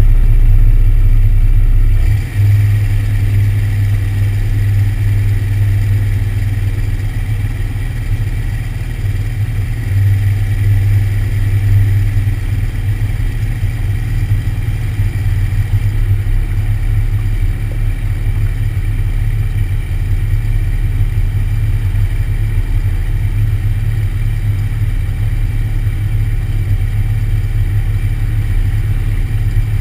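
Light airplane's engine and propeller running with a steady, deep drone, picked up by a camera mounted on the wing while the airplane taxis. The drone shifts about two seconds in, then stays steady.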